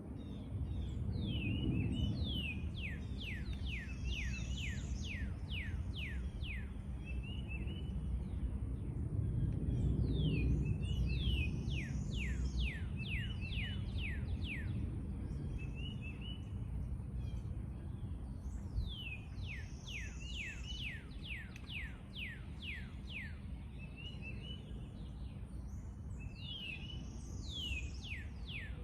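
A songbird singing the same phrase over and over, about every eight seconds: a short twitter, then a quick rising-and-falling note and a run of rapid falling whistles. Under it is a steady low rumble of background noise.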